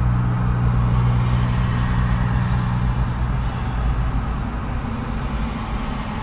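Fairly heavy urban road traffic passing close by, a continuous rush of cars. Under it a low engine hum is strongest for the first few seconds, then fades.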